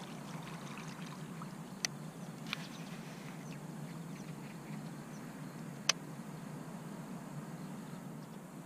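Steady low rumble over calm lake water, broken by three sharp clicks or taps, the loudest about six seconds in.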